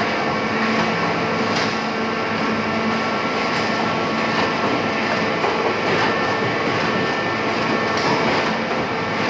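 Dry ice block and slice production machine running: a steady mechanical hum and hiss with several constant tones, and a short knock about every two seconds.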